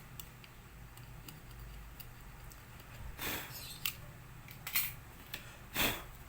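Small hand-work sounds while cleaning a laminator's heater sensor: faint clicks and three short scraping strokes, about three, four and a half, and six seconds in, the last the loudest.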